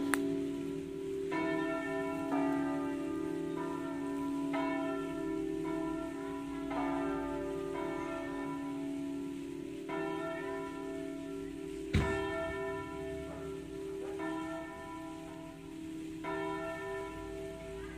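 Several large bronze church bells swinging full circle in a peal, striking in an uneven overlapping pattern over a sustained hum. About twelve seconds in there is one sharp knock.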